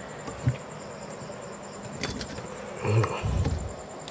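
Small clicks and a dull metal thud about three seconds in as a valve spring on a small motorcycle cylinder head is pressed down with a box spanner, seating the valve keys. A faint high steady buzz runs underneath.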